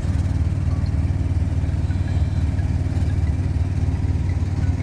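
Vehicle engine running steadily at cruising speed, a low, even rumble with road noise, heard from inside the cab.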